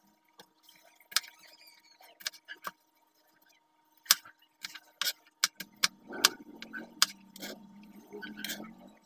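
Kitchen knife slicing shallots on a plastic cutting board: irregular sharp knocks of the blade striking the board, the loudest about four, five and seven seconds in. A low drone sounds underneath from about six seconds in.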